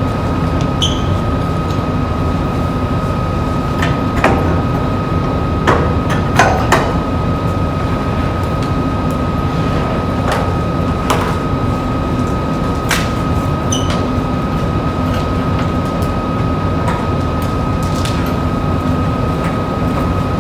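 A steady mechanical hum with a constant high tone runs throughout. Over it come about a dozen sharp, irregular clicks of table tennis balls striking hard surfaces.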